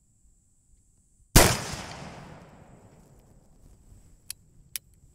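A single shot from an 1860 Army Colt replica .44 cap-and-ball revolver, about a second in, with its report fading away over a second and a half. Near the end come two sharp clicks as the single-action hammer is cocked for the next shot.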